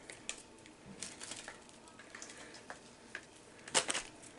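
Plastic candy wrapper of a Peeps package crinkling and crackling as it is torn open, in scattered small crackles with a louder cluster near the end.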